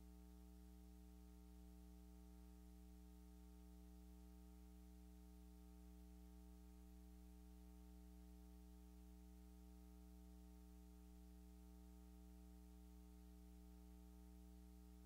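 Near silence: a faint, steady hum of several held low tones that never changes.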